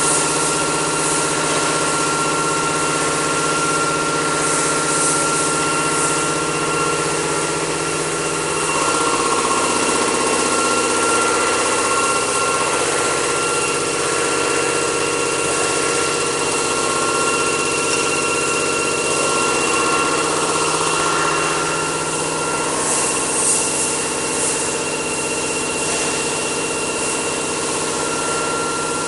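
Aerosol can filling line running: a steady machine hum with constant high whining tones, broken by a couple of short hisses.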